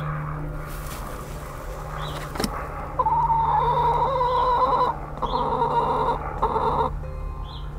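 Easter Egger hen calling on the nest before laying: one drawn-out call of about two seconds starting about three seconds in, followed by two shorter calls. A brief click comes just before the first call.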